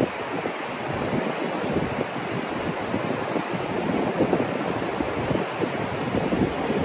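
Wind blowing over the microphone in uneven gusts, with surf washing on the shore.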